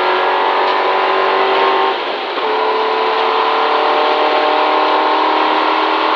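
Rally car engine heard from inside the cabin at full speed on a gravel stage, pitch climbing steadily under acceleration, with a brief dip about two seconds in before it pulls up again. A steady hiss of tyre and gravel noise runs under it.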